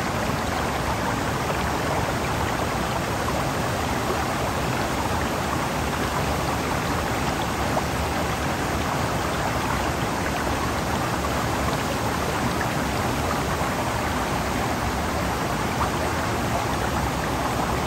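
Steady, even rushing of water.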